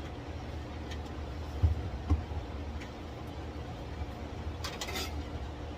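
Handling noises from hands working on dash wiring: two dull thumps about a second and a half and two seconds in, then a few light clicks and rustles near the end, over a steady low rumble.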